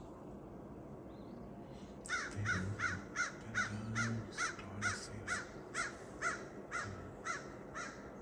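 A crow cawing in a quick, regular run of about fourteen caws, a little over two a second, starting about two seconds in.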